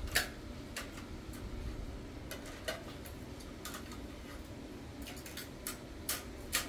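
A string of sharp, irregular clicks and taps, about a dozen, the loudest near the start and just before the end, over a low steady background hum.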